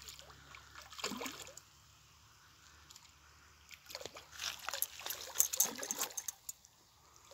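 A hooked salmon splashing and thrashing at the water surface while being played on the line, in short bursts about a second in and again for a couple of seconds past the middle.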